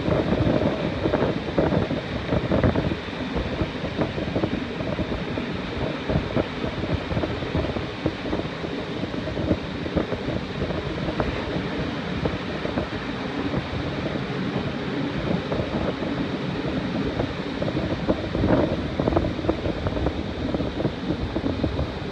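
Passenger carriage running along the line, heard from an open window: steady wind buffeting the microphone over the rumble and clatter of wheels on rail.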